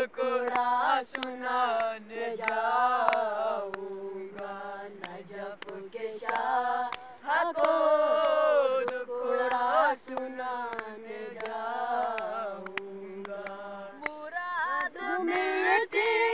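Teenage boys singing a devotional qasida in praise of Ali together, unaccompanied, in a chanting style with the melody rising and falling over a lower held note.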